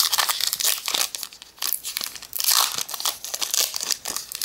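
Pokémon booster pack wrapper crinkling and tearing as it is ripped open, in quick irregular crackles.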